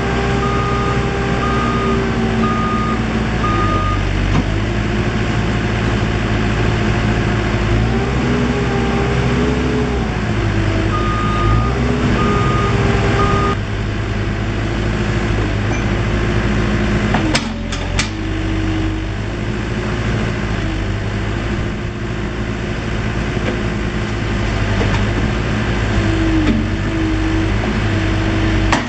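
Case 580 Super M backhoe loader's diesel engine running, its pitch rising and falling as the machine works. The reverse alarm beeps steadily for the first few seconds and again near the middle. A few sharp knocks come about two-thirds of the way through.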